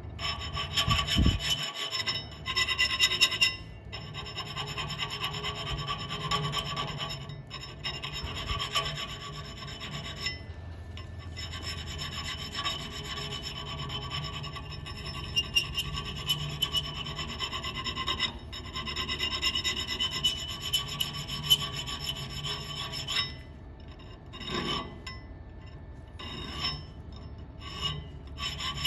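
Small hand file rasping back and forth across the steel threaded tip of a fork cartridge rod, smoothing a raised ridge on the thread. The scraping runs on with brief pauses and becomes more broken near the end.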